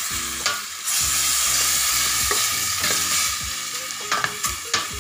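Pork chunks sizzling as they sauté in a stainless steel pot, stirred with a spoon that scrapes and knocks against the pot several times, most often near the end.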